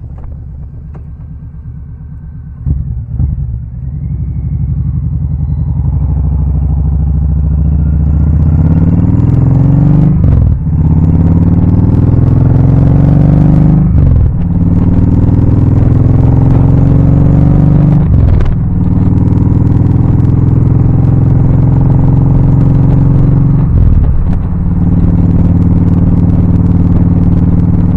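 Touring motorcycle engine ticking over at a stop, then pulling away and accelerating through the gears: the engine note rises and drops back four times at the upshifts. Wind noise on the helmet-mounted microphone grows as the bike gathers speed.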